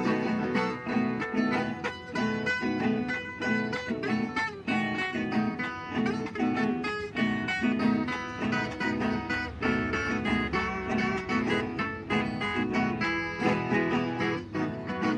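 Instrumental break of a Brazilian caipira song: plucked acoustic string instruments picking a busy melody over the chords, with no singing.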